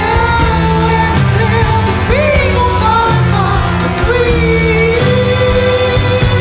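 A recorded song: a sung vocal line over a band with a repeating bass figure, the singer holding one long note through the last couple of seconds.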